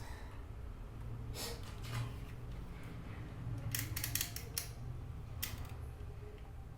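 Snipping and clicking of small hand tools working on CCTV camera cable: single sharp clicks about a second and a half and two seconds in, a quick run of several near four seconds and one more near five and a half, over a low steady hum.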